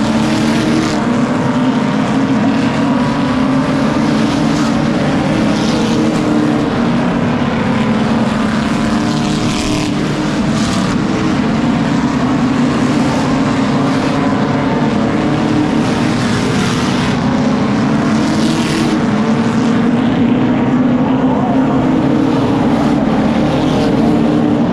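Stock cars racing around a short oval, a steady engine drone from the pack. Every few seconds a single car swells briefly louder as it passes close by.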